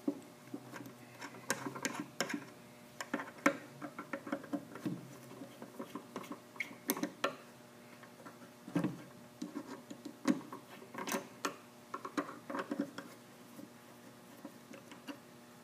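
A screwdriver backing out the small screws that hold the body of a Marble Products 500 Dial-Flo shampoo bowl faucet: a run of irregular small clicks and scrapes of metal on metal, dying away near the end.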